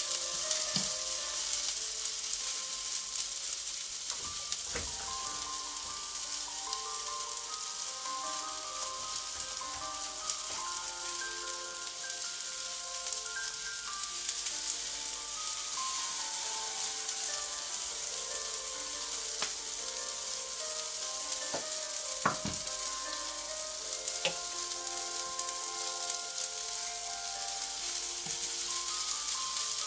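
Halved Brussels sprouts sizzling steadily in olive oil in a hot ridged grill pan, with a few sharp clicks of tongs against the pan as they are turned. A quiet melody runs underneath.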